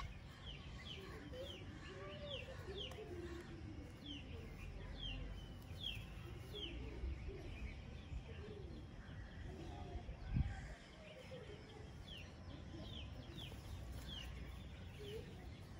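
Small birds chirping in the background: many short, high, falling chirps repeating through most of the stretch, over soft low curving calls. One dull thud about ten seconds in.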